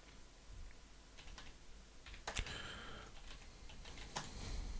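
Typing on a computer keyboard: irregular, faint keystrokes with a louder key click about halfway through.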